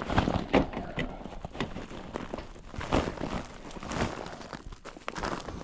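Handling noise: irregular clicks, light knocks and rustling, several a second, with no steady machine sound.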